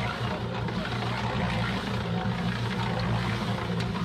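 Small portable concrete mixer running, its motor giving a steady hum as the drum turns a load of concrete, with a few faint ticks on top.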